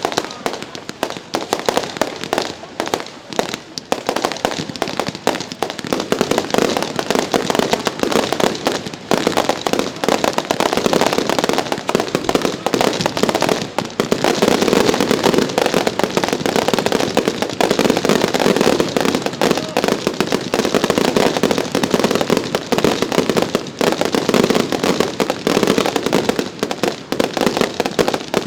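Professional fireworks display: a dense, continuous barrage of shell bursts and crackling, many reports a second, growing louder about six seconds in and again about halfway through.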